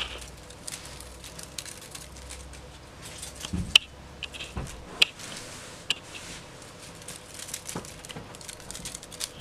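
Ragdoll kitten scampering on a blanket: irregular soft rustling and scrabbling of paws on the fabric, with a low thud and a few sharp clicks about midway.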